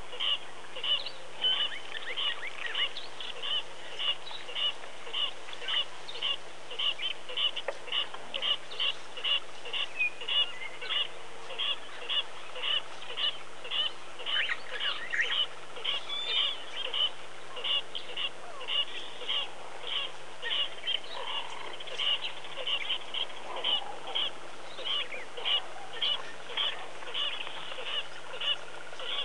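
A bird calling over and over with one short, high note, about two a second, while other birds call now and then.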